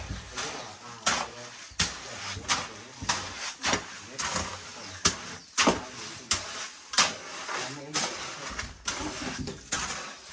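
A metal hand tool working wet cement mix for a concrete floor, scraping and knocking against it in a steady rhythm of about one and a half strokes a second.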